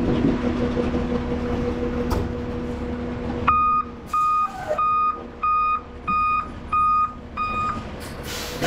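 Concrete mixer truck reversing: its diesel engine runs steadily while the backup alarm beeps about seven times, evenly spaced. Near the end, a loud burst of air hiss from the truck's air brakes.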